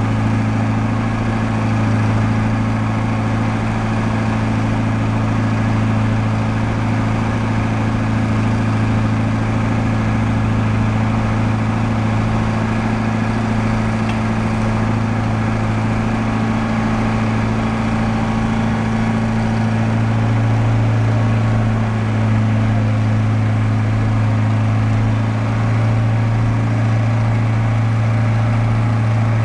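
Cummins six-cylinder turbo diesel engine of a 1967 Bucyrus-Erie 45C truck crane running at a steady speed while the boom is raised and telescoped out, with a steady low drone.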